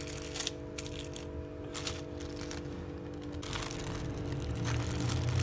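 Plastic film crinkling and crackling in irregular bursts as leftover biscuit dough is peeled up off it, over a steady low hum.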